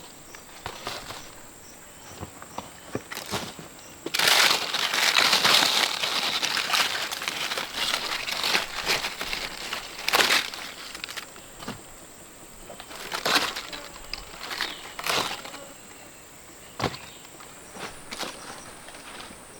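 Leaves and plant stems rustling and crackling as they are handled, with a long stretch of rustling early on and then a few separate sharp snaps.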